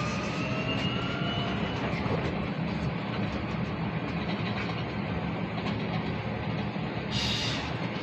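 Cabin noise of a Volvo BZL electric bus under way: the traction motor's whine rises in pitch over the first two seconds and fades, leaving a steady road and body rumble. A short hiss comes near the end.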